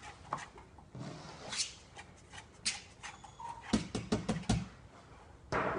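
Scattered light clicks and taps, then a dog barks near the end.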